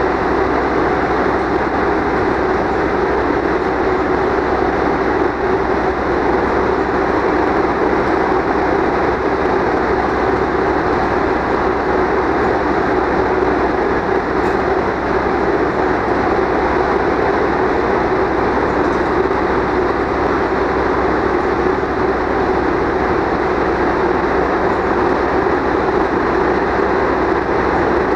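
Stainless-steel passenger coaches rolling slowly past while being shunted: a steady rumble of wheels on rails.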